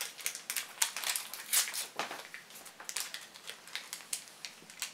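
Light blue blind-box bag crinkling and crackling as it is worked open by hand: a rapid, irregular run of small crackles.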